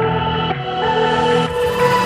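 Background electronic music: held synth chords that grow brighter toward the end as the music builds.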